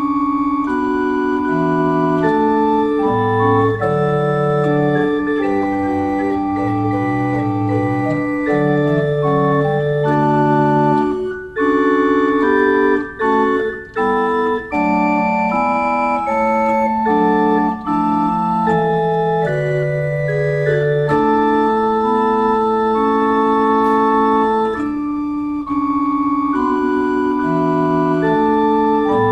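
Pipe organ playing held chords over a moving lower line, with a few short breaks between phrases about halfway through.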